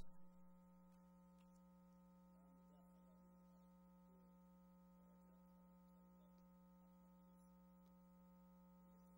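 Near silence with a steady low electrical hum and no other sound.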